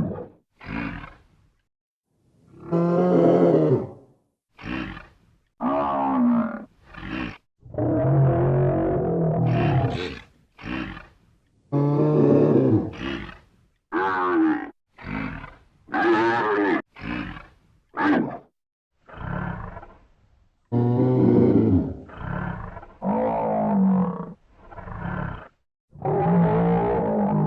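Buffalo bellowing and grunting: a series of about twenty separate deep, pitched calls, some short and some drawn out for a second or two, with dead silence between them.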